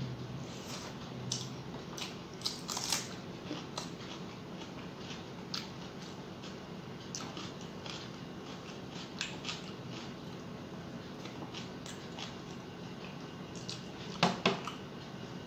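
Close-up eating sounds: a mouthful of rice with crisp fried bitter gourd being chewed, heard as scattered wet mouth clicks and small crunches, while fingers mix rice on the plate. A sharper pair of clicks comes near the end.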